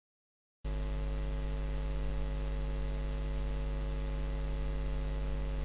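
Steady electrical mains hum with a stack of even overtones and a hiss underneath. It starts abruptly about half a second in, out of digital silence, and holds at an even level. It is the background hum of the narration's recording chain.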